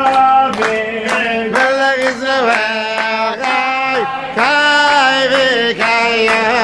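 A group of people singing a melody together in long held notes, with hand clapping keeping a beat about twice a second.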